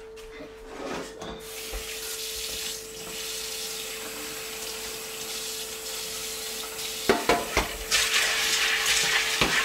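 Tap water running into a bowl or pot of sugar beans being washed and rinsed. The water grows louder near the end, with a few knocks of the pot or bowl about seven seconds in and again just before the end. A faint steady hum runs underneath.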